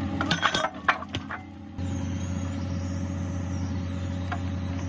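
Excavator diesel engine running steadily at a low hum, with several sharp knocks in the first second and a half.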